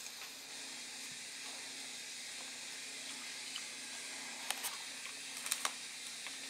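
Siberian husky puppy chewing an apple: a handful of sharp crunches, a pair about four and a half seconds in and another pair about a second later, over a steady hiss and a faint low hum.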